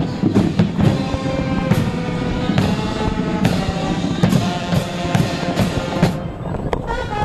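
Marching band playing: held notes over a steady beat of snare and bass drums.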